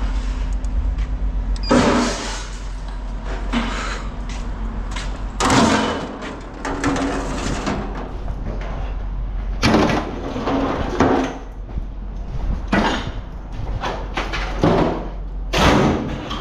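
Scrap metal being handled: irregular clanks and clatters of metal pieces knocking and dropping, about eight or nine of them spread unevenly, over a steady low hum.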